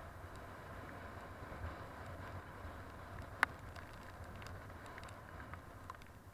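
Motorbike engine and road noise running steadily at low throttle on a downhill ride in heavy rain, with scattered sharp ticks and one louder click about three and a half seconds in.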